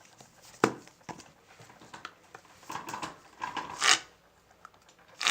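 Aerosol can of shaving foam being dispensed: a sharp click about a second in, then a short hiss of spray near the end.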